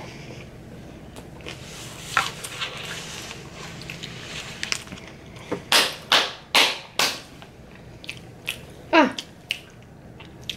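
A person puffing out several short, strong breaths through the mouth, most of them about halfway through, and a short vocal sound falling in pitch near the end.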